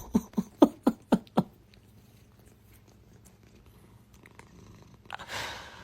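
A cat giving a quick run of about six short calls, about four a second, then falling quiet; a short breathy noise comes near the end.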